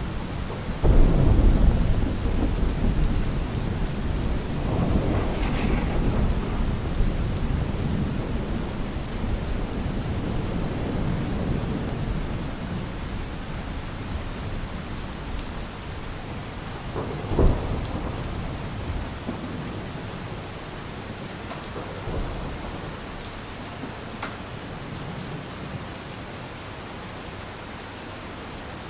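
Steady rain with rolling thunder: a heavy rumble about a second in, another around five seconds, and a sharper thunderclap near seventeen seconds, the storm growing quieter toward the end.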